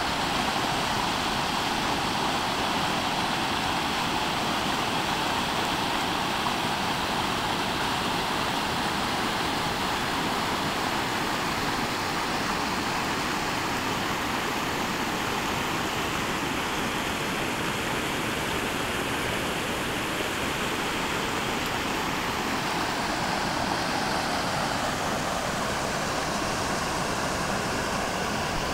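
Floodwater rushing down a creek in flash flood: a steady, unbroken rush of water.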